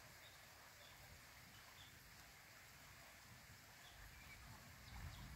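Near silence: faint outdoor ambience with a few faint, short high chirps, and a low rumble swelling near the end.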